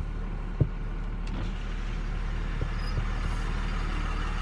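Cummins turbo diesel engine of a Dodge Ram 2500 pickup running at low speed, a steady low drone heard from inside the cab. Two short knocks come in the first second.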